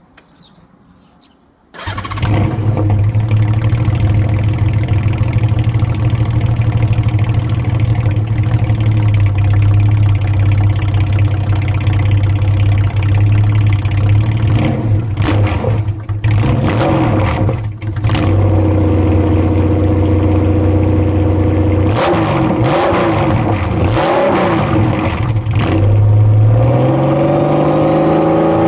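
Honda GL1800 Gold Wing's flat-six engine, fitted with Mustang silencers, starting about two seconds in and then idling steadily, with a few short throttle blips in the second half and the revs rising and holding higher near the end.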